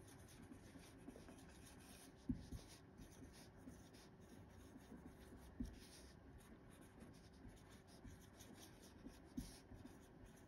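Faint scratching of a felt-tip marker writing words on paper, with three soft knocks spread through.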